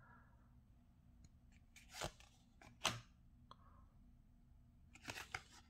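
A stack of Panini Playbook football trading cards being flipped through by hand: a few faint scrapes and flicks as cards slide off the front of the stack. The sharpest flick comes a little before three seconds in, and there is a small cluster of them near the end.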